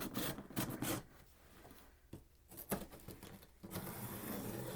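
Handling noise from a bolt of fabric being moved and shown: light knocks and rustling in the first second, another knock a little before three seconds, then steadier rustling through the last second.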